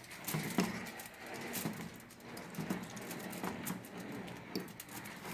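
Faint irregular taps and soft squishing as oil-soaked dried figs are pressed down in a plate so they absorb the oil.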